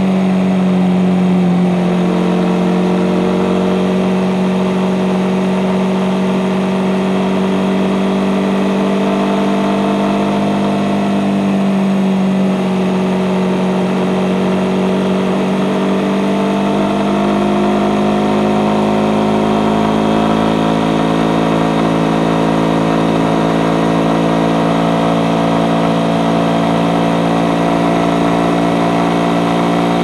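Suzuki GSX-S150's single-cylinder four-stroke engine running through its stock exhaust, a steady engine note whose pitch drifts gently down and back up.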